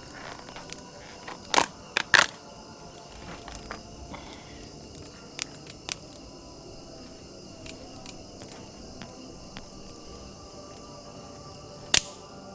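Steady high-pitched chirring of night insects, with a few sharp clicks and knocks on top: three close together about two seconds in, two more around the middle, and one loud knock near the end.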